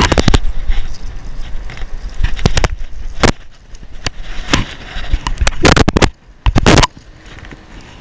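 Close handling noise as a striped bass is held and unhooked from a plug: rustling, scraping and sharp clicks and knocks, with two louder rushes of noise past the middle.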